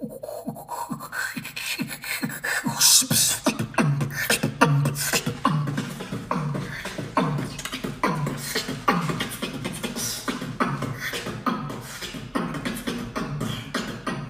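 Human beatboxing: a steady beat of deep bass hits with sharp snare and hi-hat clicks over them.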